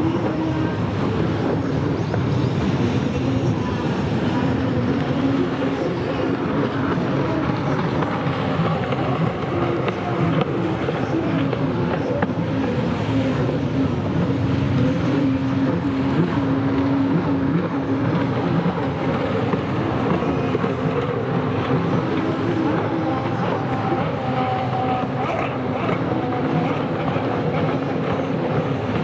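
Racing stand-up jet ski engines running hard, the pitch wavering up and down as the skis throttle through the course.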